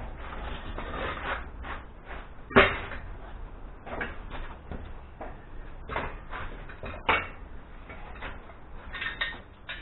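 Metal clanks and knocks as steel parts of a workshop engine stand are handled and fitted together. The sharpest knocks come about two and a half seconds in and again about seven seconds in.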